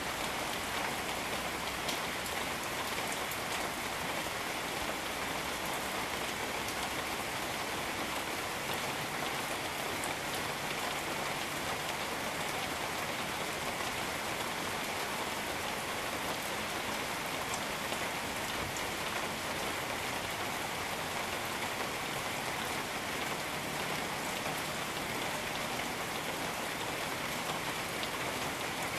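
Steady rain falling on jungle foliage, an even hiss with scattered drops ticking close by.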